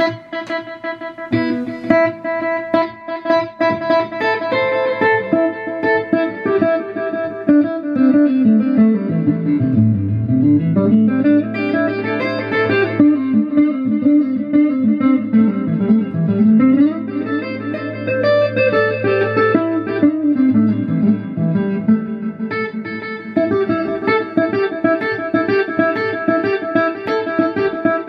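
Electric guitar played through a Boss RE-20 Space Echo tape-echo emulation pedal, its notes smeared into overlapping repeats. In the middle stretch the pitch slides down and back up several times.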